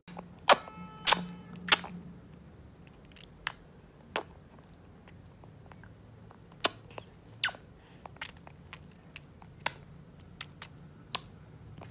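A baby's mouth noises: scattered wet smacks and clicks over faint room hum, a few louder ones in the first two seconds, then sparser ones.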